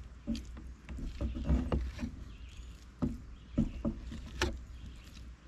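Fillet knife being drawn along a catfish fillet to cut it off the skin on a wooden board. The blade scrapes and knocks irregularly against the wood, with a few short squeaks, over a low steady rumble.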